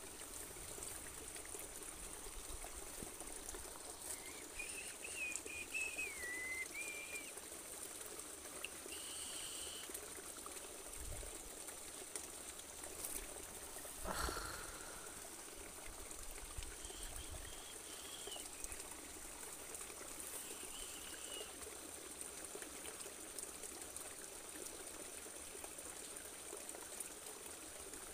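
Faint trickling water with a few short, high bird chirps now and then, and a single sharp knock about halfway through.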